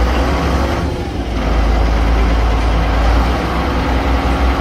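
A passenger water bus's engine running steadily under way, a constant low hum with a rushing noise over it.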